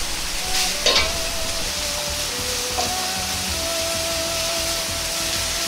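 Ground pork sizzling in hot oil in a wok while it is stirred with a metal ladle, which clinks against the wok a couple of times about a second in. Soft background music with held notes plays underneath.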